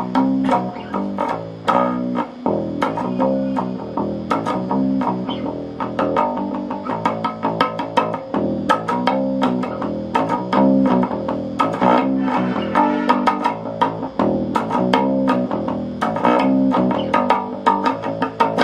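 Electric bass played through an Epiphone Studio 15B bass combo amplifier with the master volume and all EQ bands turned to full: a busy line of rapid plucked notes with sharp attacks, which stops at the very end.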